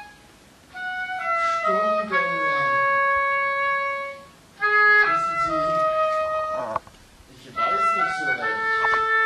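Woodwind melody, clarinet-like, played in held notes that step up and down, in short phrases with brief pauses between them.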